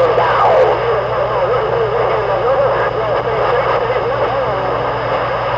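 CB radio receiver playing a jumble of overlapping, garbled voices with warbling whistles, over a steady hum. A faint steady tone joins near the end.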